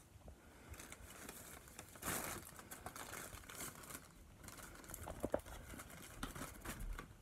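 Plastic bag crinkling and rustling as it is handled, in short irregular bursts with a louder crackle about two seconds in.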